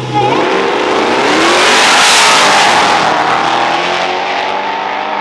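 A Ford Mustang and a first-generation Chevrolet Camaro launching side by side in a drag race at full throttle. Their engines rev up as the cars pull away. The noise jumps in suddenly and is loudest about two seconds in.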